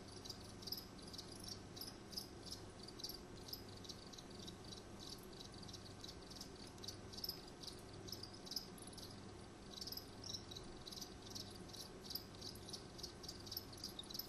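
Crickets chirping steadily in short, high-pitched, evenly spaced chirps, about three a second, with a brief pause about two-thirds of the way through.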